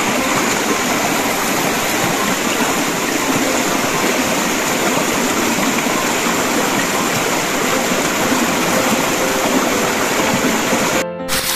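Steady rush of flowing stream water, with hands stirring through a pool of grated wild yam soaking in it. It cuts off suddenly near the end, and music begins.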